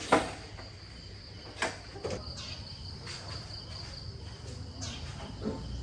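Steady high insect trill throughout. A sharp knock comes right at the start as a motorcycle helmet is picked up, with two lighter knocks about two seconds in.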